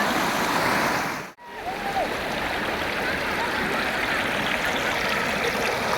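Running water rushing steadily, like a stream or small waterfall. It cuts out abruptly for an instant about a second and a half in, then carries on.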